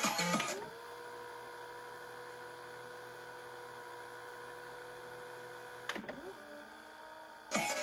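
Motor whine from the Aiwa HV-M10SH VHS deck's tape mechanism: a steady hum that comes up to pitch about half a second in and holds. It dips around six seconds and settles to a lower tone, and a short louder burst comes near the end.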